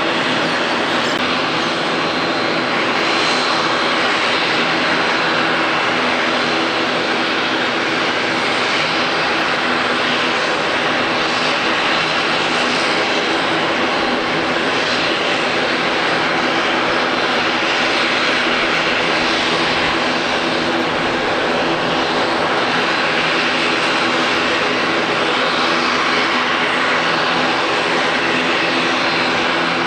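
Widebody jet airliner's engines running at a steady level: a loud, even roar with a thin high whine.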